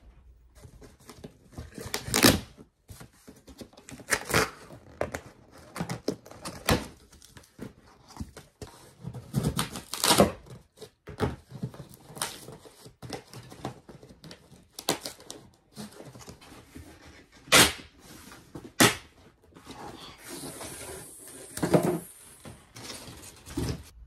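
A cardboard shipping box being opened by hand: flaps pulled and torn, cardboard scraping and rustling, with irregular sharp knocks and thuds throughout, a few of them much louder. Near the end comes a longer hissing scrape.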